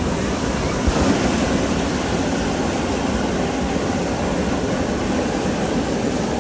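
Hot air balloon's propane burner firing: a steady, loud rushing blast that holds without a break.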